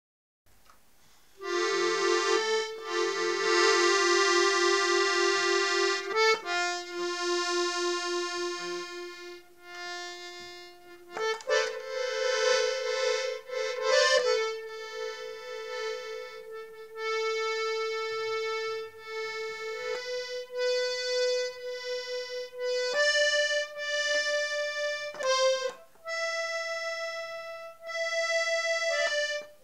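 Piano accordion playing a slow tune of long held notes and chords, starting a little over a second in.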